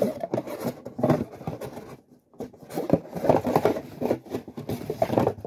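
Cardboard box and paper packaging being handled: irregular scraping, rustling and tapping, with a brief pause about two seconds in.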